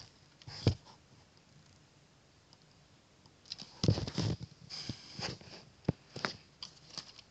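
Hands handling a Lego Technic plastic model: scattered clicks and knocks of plastic parts, with a cluster of rustling knocks about four seconds in.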